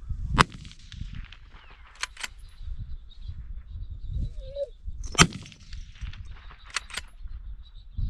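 Two rifle shots about five seconds apart, each a sharp crack with a ringing tail, with pairs of quicker, fainter sharp metallic clicks between them.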